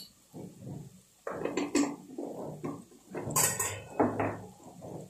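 Metal utensils clinking and scraping against a metal cooking pot in irregular clatters, starting about a second in, with a few sharp bright clinks.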